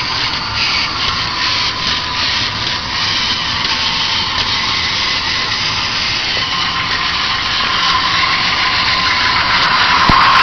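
Roller coaster ride noise: a steady rushing, rubbing sound of the car running along its track, with a faint hum that rises slightly near the end before it cuts off abruptly.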